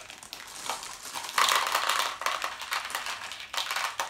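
Plastic M&M's candy bags crinkling as they are torn open and handled, with candies pouring out and rattling onto plates. The rustle grows louder about a second and a half in.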